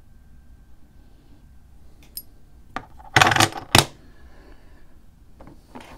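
Silver coins and hard plastic coin slabs being handled and set down. A few light clicks, then a louder clatter about three seconds in with a sharp click right after, and two faint taps near the end.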